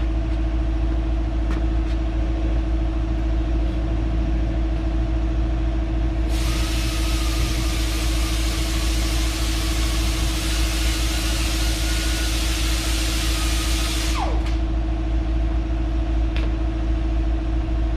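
Electric grinder running for about eight seconds, grinding down a brake pad so it fits the caliper bracket, then switched off, its whine falling as it spins down. A steady low hum runs underneath throughout.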